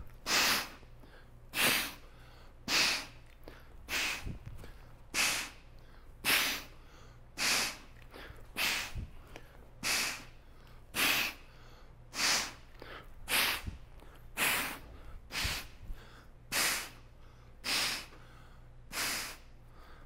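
A man's short, sharp breaths, about one a second, timed to his kettlebell snatch-press reps: rhythmic exertion breathing.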